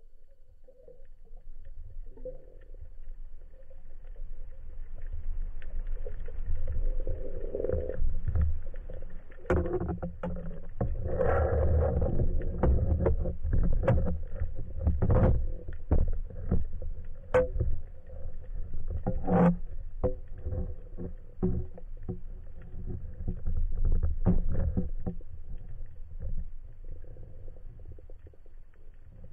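Underwater sound picked up by a diving camera: a low rumble of moving water that swells through the middle and fades near the end, with many sharp clicks and knocks and a faint steady hum.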